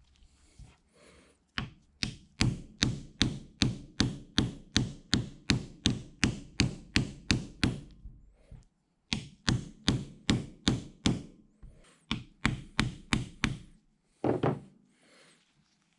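Hammer tapping a pin into the driving-gear shaft of a mill coolant pump, in a steady run of sharp blows about three a second, with a short pause about halfway and a heavier thunk near the end.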